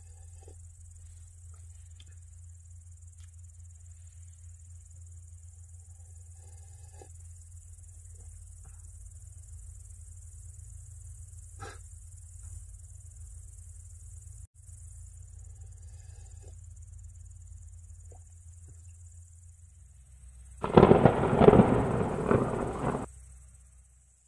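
Steady high-pitched insect chirring over a low steady hum, with a few faint ticks. Near the end a loud, rough, rushing noise lasts about two seconds.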